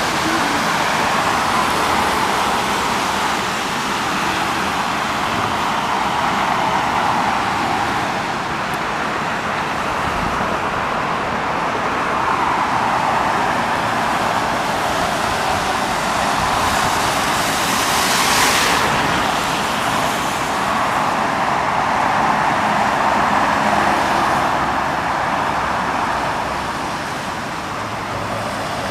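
Road traffic noise: a steady hiss of passing vehicles that swells and fades every few seconds, with one louder, brighter pass about eighteen seconds in.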